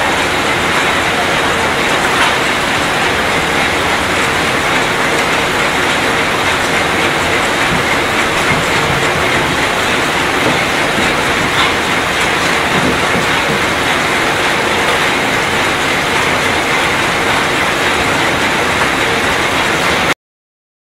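Biscuit vibration-feeding packing line running: a steady, dense rattling clatter with a faint machine hum from the vibrating conveyors and the biscuits on them. It cuts off abruptly for a moment near the end.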